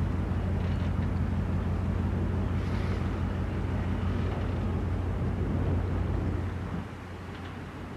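Low, steady hum of a large ship's engines across the water, dropping away suddenly about seven seconds in.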